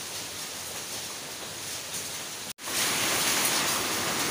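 Steady hiss of rushing water from a rocky forest stream. It cuts out for an instant about two and a half seconds in, then comes back louder.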